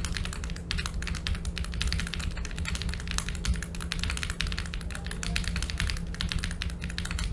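Rapid typing on tactile mechanical keyboard switches, a dense run of clacks. The switches sit in an unmounted plate resting loosely on foam, which makes the board wobbly.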